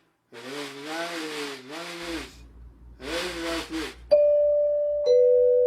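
Aircraft cabin PA two-tone chime: a high ding about four seconds in, then a lower tone a second later that rings on and slowly fades, closing the captain's announcement.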